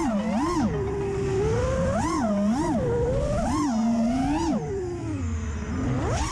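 FPV racing quadcopter's T-Motor F40 Pro II 2400Kv brushless motors whining, the pitch swooping up and down repeatedly as the throttle is punched and chopped.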